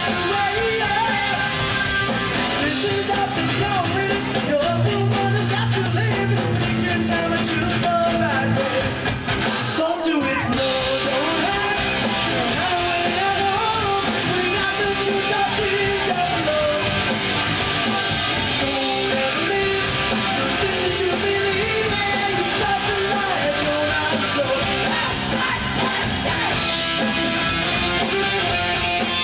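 Punk rock band playing live: electric guitars, drums and a singer shouting the vocal into a microphone. The music drops out for a moment about ten seconds in.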